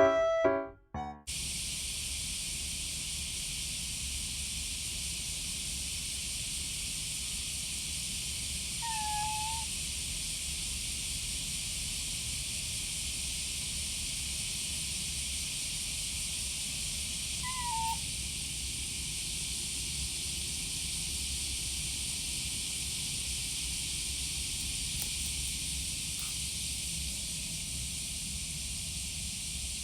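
Steady high-pitched hiss of cicadas singing in summer, with two short soft pitched calls, one about a third of the way in and one just past halfway. Background music cuts off about a second in.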